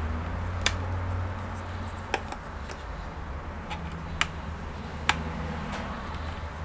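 Four sharp, separate clicks from hand work on a laptop's case, over a low steady hum.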